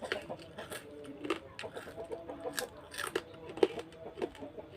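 Close-miked eating: chewing with repeated short crunches and mouth clicks.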